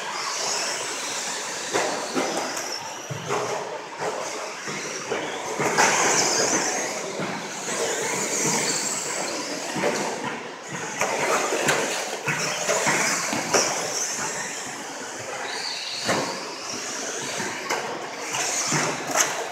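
Radio-controlled stadium trucks racing on an indoor dirt track, their motor noise and tyre noise swelling and fading as the trucks pass near and away.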